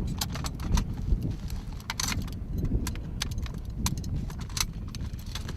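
Metal parts of a machine gun being handled during field stripping and reassembly: irregular clicks and clinks of pins, bolt and receiver parts, over a steady low rumble.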